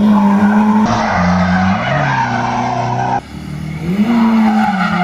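Car drifting: the engine revs up and down while the tyres squeal. The sound changes abruptly about a second in and again about three seconds in, as if separate clips are cut together.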